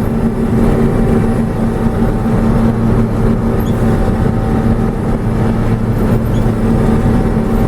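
John Deere 6620 sidehill combine running steadily while harvesting corn: a constant engine and threshing drone with a steady hum.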